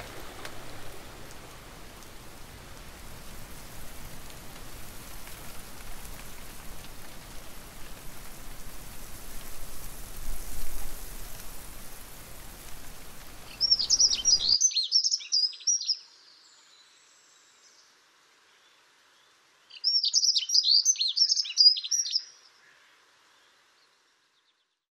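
Steady rush of stream water that stops abruptly about two-thirds of the way in. Then come two short bursts of a small songbird's rapid, high chirping song, a few seconds apart, louder than the water.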